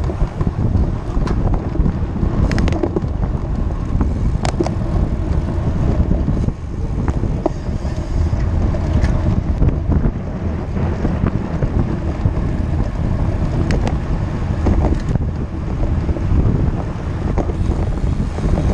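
Wind rushing over the microphone of a camera on a moving road bike: a steady low rumble, with a few sharp ticks and rattles.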